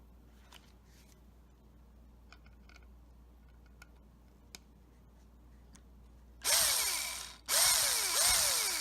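Cordless drill driving wood screws into soft wood: two bursts near the end, the second running on, the motor's pitch sagging and springing back several times as the screw bites. Before that, a few faint clicks of handling.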